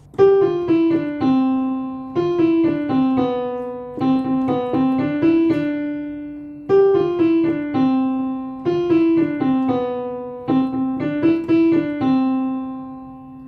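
Solo piano playing a simple children's-song melody in short repeating phrases, each struck note ringing and fading.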